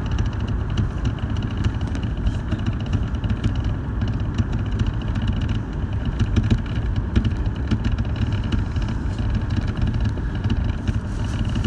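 Sapporo subway 5000-series rubber-tyred train running through a tunnel: a steady low rumble with a faint steady high tone and scattered light clicks.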